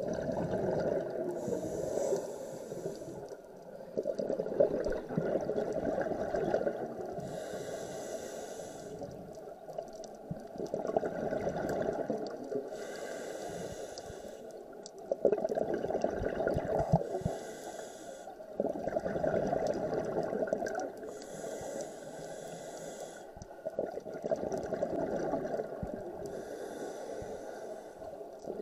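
Scuba diver breathing through a regulator underwater. A short hiss on each inhale comes about every five seconds, six times, and alternates with the bubbling gurgle of exhaled air.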